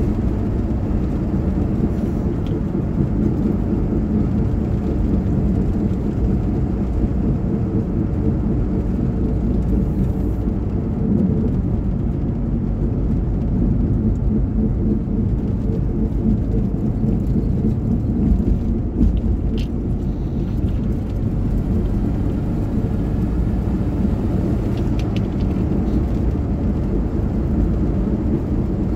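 Car driving at steady speed, heard from inside the cabin: a continuous low rumble of engine and tyre noise.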